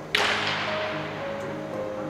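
Background music with steady sustained notes, broken just after the start by one sudden sharp crack whose hiss fades away over about half a second.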